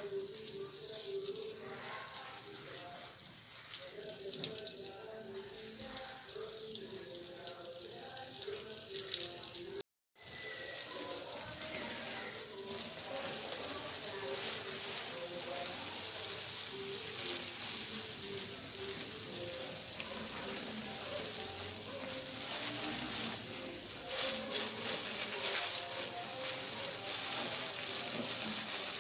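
Water spraying from a garden hose onto leaves and soil: a steady hiss of spray.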